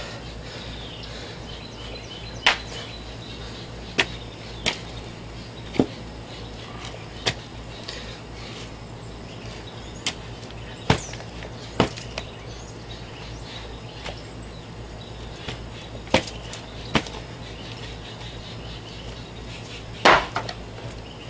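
Shovel digging in heavy, sticky wet clay: about a dozen sharp knocks and scrapes at uneven intervals, the loudest near the end, over a steady low hum.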